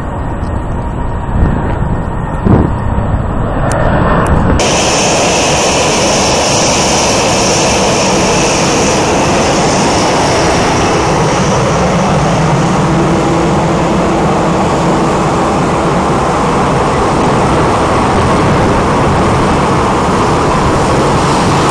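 Steady loud jet aircraft noise on an airport apron, a dense rush with a whine. It grows brighter and fuller about four and a half seconds in.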